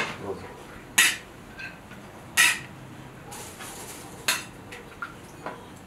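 Ceramic serving plate clinking and scraping against a large metal kazan as plov is scooped up. There are three sharp clinks a second or two apart, with a few fainter knocks between them.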